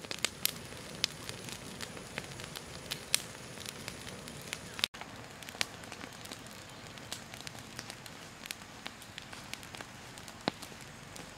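Open fire of burning branches and brush crackling, with sharp irregular snaps and pops over a steady hiss.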